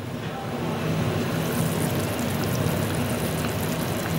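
Tamarind fish curry boiling hard in a clay pot: a dense, steady bubbling over a steady low hum.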